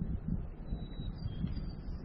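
Wind buffeting the microphone in uneven low gusts, with a faint thin high tone in the second half.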